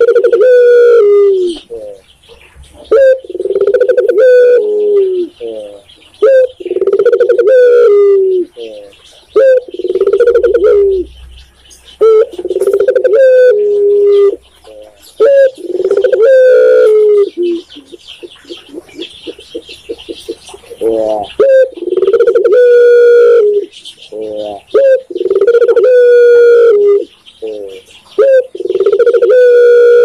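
A caged dove, the bird called tekukur in Indonesian, cooing: a low, rolling phrase repeated about every two seconds, with a short break about two thirds of the way through. Small birds chirp faintly in the background.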